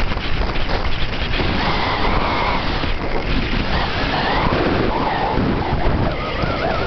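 Wind buffeting a handheld compact camera's microphone during a fast downhill ski run, with the skis scraping over groomed snow underneath.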